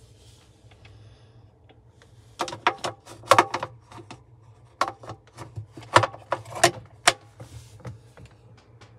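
A run of sharp clicks and clattering knocks from hard objects being handled, loudest in the middle, over a faint steady low hum.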